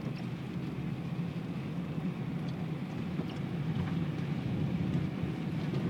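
Steady low rumble of a car's engine and tyres, heard from inside the cabin while driving, growing a little louder in the second half.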